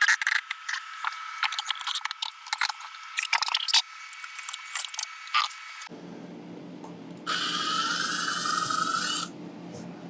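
Clicks, knocks and scraping of demolition work for about six seconds, then a power drill runs for about two seconds over a low steady hum.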